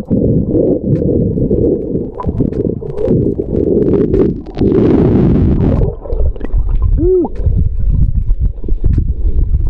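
Underwater audio of a freediver ascending while exhaling: dense muffled rumbling of water, with bubbles gurgling and many small clicks. A hissier rush of bubbles comes about five seconds in, and a short squeak that rises and falls comes about seven seconds in.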